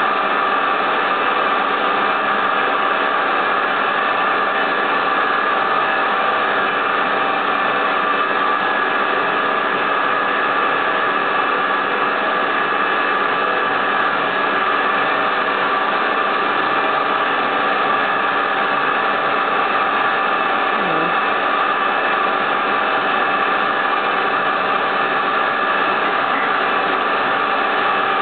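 High-speed CNC spindle running with a micro end mill machining. It makes a steady whine of several tones over an even hiss.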